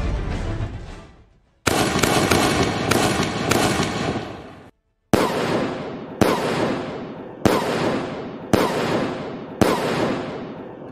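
Fireworks: a couple of seconds of loud noise with several sharp cracks, then five aerial shell bursts about a second apart, each a sudden bang trailing off in a fading hiss. Background music fades out just before.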